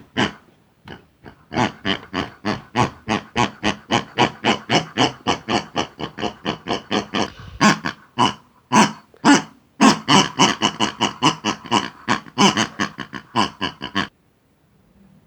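Pig grunting and oinking in a rapid run of short grunts, about four a second, that cuts off abruptly near the end.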